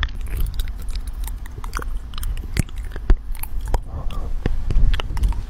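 A cat chewing on a black cable, its teeth making irregular sharp clicks on it.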